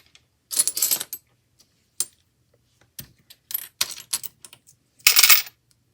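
Small planner discs clattering and clicking as they are dropped into and shuffled around a mini vending machine. The clicks come in irregular bunches, the loudest just before a second in and again about five seconds in, with scattered single clicks between.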